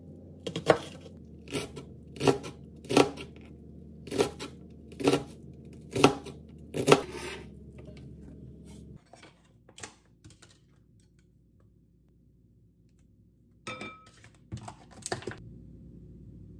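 A kitchen knife chopping an onion on a plastic cutting board: slow, even chops about one a second for roughly seven seconds. It goes quieter after that, with a few light clicks near the end.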